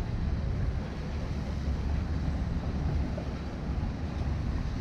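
Steady low rumble of city street noise, with no clear pitch or single event standing out.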